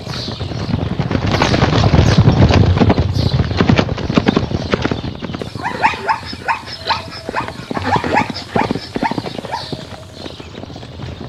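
Hoofbeats of zebras galloping on dry, dusty ground, a fast irregular drumming that is loudest about two seconds in. In the second half a run of short, higher pitched sounds rides over the hooves before the running eases off near the end.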